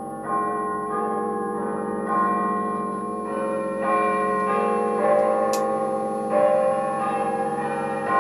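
Bells chiming, a new stroke every second or so, the overlapping tones ringing on, from the film soundtrack played through a 1938 Murphy A56V television's loudspeaker. Under them is a thin, steady, high whistle, typical of a 405-line set's line scan.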